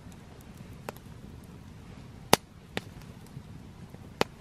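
Four sharp clicks, well spaced, over a faint steady low background; the second, a little past two seconds in, is much the loudest.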